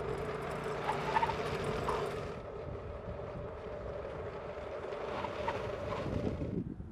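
A car driving on an open test track: a steady hum with road and outdoor noise. The sound changes abruptly about two and a half seconds in and again near the end.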